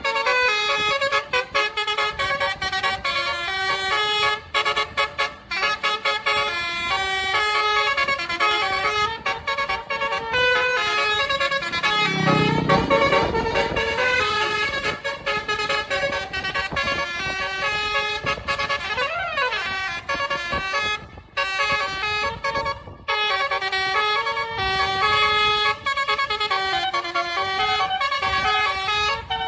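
Indonesian bus 'telolet' horn playing a melody, its tuned horn notes stepping up and down one after another. A louder, deeper horn blast sounds around twelve seconds in, and a quick rising-and-falling pitch sweep near the nineteen-second mark.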